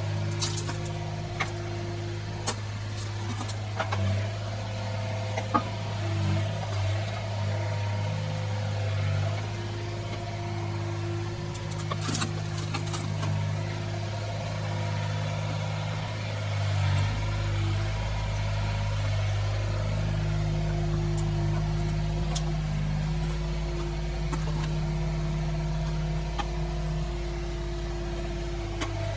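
Yanmar B22 mini excavator's diesel engine running steadily while digging, played back at double speed. A few sharp knocks come through, and a bit over halfway the engine note shifts and a deeper hum joins it.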